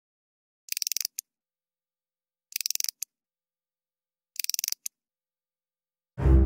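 Chattering teeth toy clacking in three quick bursts about two seconds apart, each a rapid run of clicks ending in a single click. Music with a heavy bass comes in near the end.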